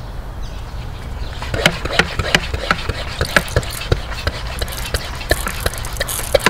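Diluted Zep siding cleaner sprayed from a wand onto painted wood siding, the liquid spattering and dripping onto bricks below as a run of irregular sharp ticks that starts about a second and a half in, over a steady low hum.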